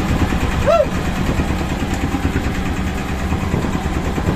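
A fishing boat's engine running steadily, with a short voice-like exclamation about a second in.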